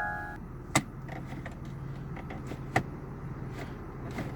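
Gear shift lever of a 2010 Chevrolet Impala being moved through its positions: two sharp clicks about two seconds apart and a few fainter ticks, over a faint steady hum. The shifter is working again after its shift cable was reconnected.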